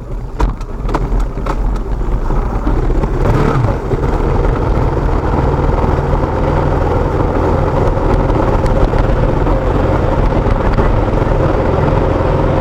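KTM motorcycle engine running as the bike pulls away and rides on. It grows louder over the first couple of seconds, then runs steadily. A few sharp clicks sound in the first second and a half.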